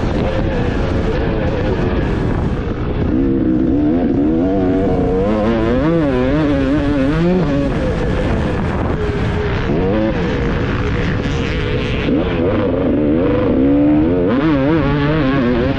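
300cc two-stroke motocross bike engine being ridden hard, its pitch rising and falling again and again with throttle and gear changes, with wind noise over it.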